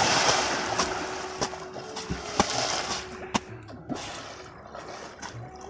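Pond water splashing and churning from a dive, loudest at first and dying down over a few seconds, with a few sharp slaps of water.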